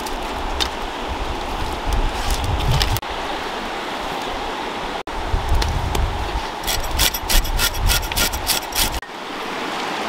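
Steady rush of a flowing river. In the last few seconds come a run of quick scraping strokes, a knife scraping scales off a fish on a wooden chopping block.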